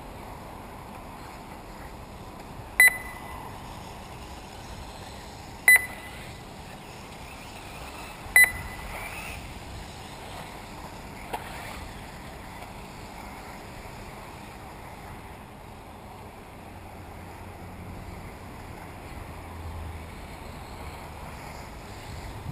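Three short, sharp electronic beeps about three seconds apart, typical of a race lap-timing system signalling cars crossing the timing line, with a faint click later, over a steady background hiss.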